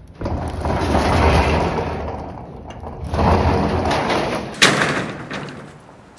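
A door dragged along its track in two long rumbling pushes, then shut with a single loud bang.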